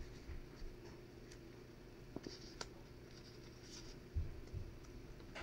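Faint rustling and scraping of paper being handled, folded and glued by hand, with small clicks and a few soft thumps about four seconds in.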